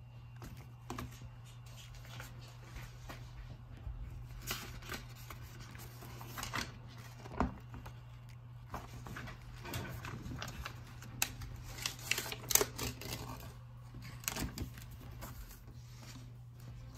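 Paper and a pad being handled and laid out on a hard tabletop: rustling and scattered light taps and clicks, with a few sharper knocks around the middle, over a steady low hum.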